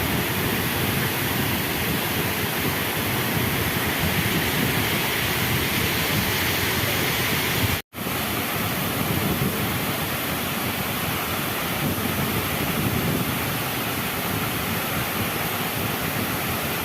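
Waterfall: a steady rush of falling water that cuts out for an instant about eight seconds in.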